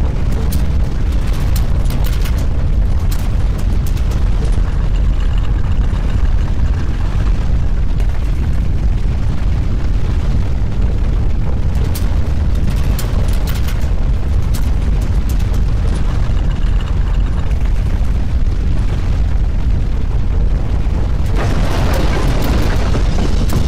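Deep, continuous earthquake rumble with scattered rattling, the sound of a great earthquake's ground shaking; a louder rushing noise rises near the end.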